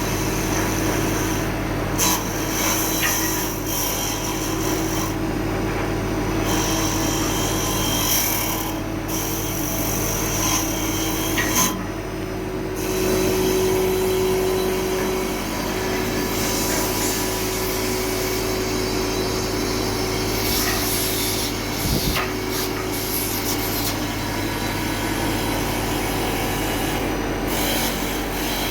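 CNC wood lathe cutting a wood blank: a steady machine hum under a hissing, rasping cutting noise that drops out briefly a few times.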